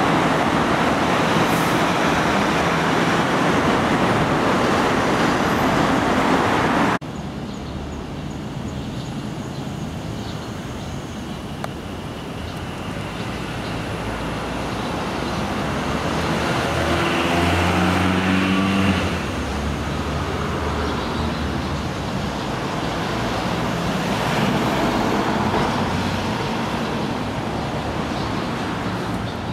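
Dense road traffic on a busy multi-lane road runs as a steady roar and cuts off abruptly about seven seconds in. Quieter street ambience follows, in which a nearby vehicle engine swells just past the middle and then stops suddenly.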